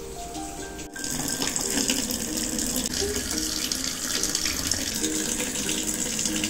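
Water running from a tap into a sink, coming up strongly about a second in, with quiet background music of short repeated notes underneath.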